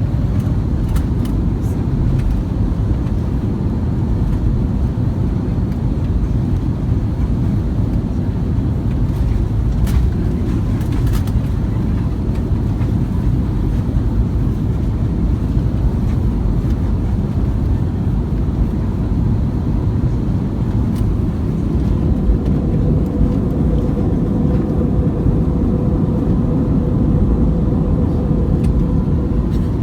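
Steady low roar of a jet airliner's cabin in flight, engine and airflow noise, with a steady hum joining in about two-thirds of the way through and a few faint clicks around the middle.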